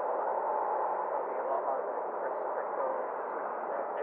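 Air traffic control radio receiver: steady static hiss with faint, garbled voice-like traces, narrow and tinny like a radio speaker.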